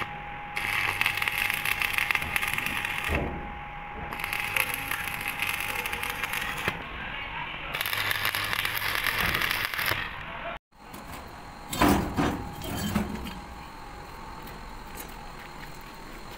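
Stick (arc) welding: the electrode's arc crackles and sizzles in three runs of a few seconds each, broken by short pauses. Near the end there are a few sharp knocks over a lower background.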